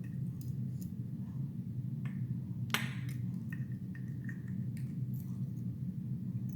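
Scattered small clicks and taps of metal lock parts, the pins and springs of an ASSA 700 pin-tumbler lock being handled as it is taken apart, one sharper click a little under three seconds in. A steady low hum runs underneath.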